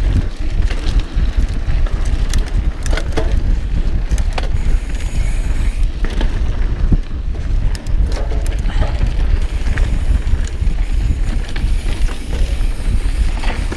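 Mountain bike being ridden along a dirt trail: loud wind rumble on the camera's microphone, with tyres rolling over the ground and the bike rattling in frequent clicks and knocks.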